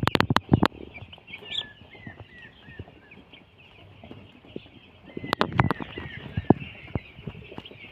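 A flock of two-day-old broiler chicks peeping constantly in short, high, falling chirps. Sharp knocks or clatters cut in during the first second and again about five and a half seconds in.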